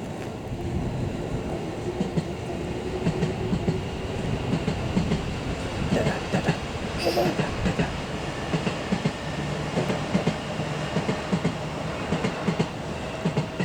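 Electric train running past on the track, its wheels clacking over the rail joints in a long series of short knocks that ease off near the end.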